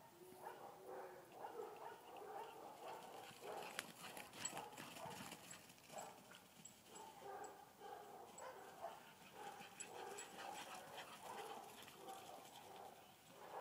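Dogs barking and yipping faintly, in quick short calls repeated throughout.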